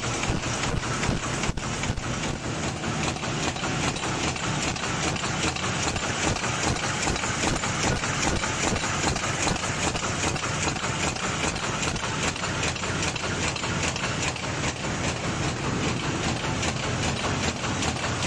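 Full-servo paper bowl forming machine (XZT-150W) running at its production speed of about 150 bowls a minute: a steady mechanical clatter made of rapid, closely spaced clicks.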